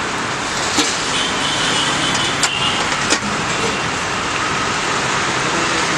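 Steady roadside traffic noise, with a few sharp clicks or clinks and a faint high tone partway through.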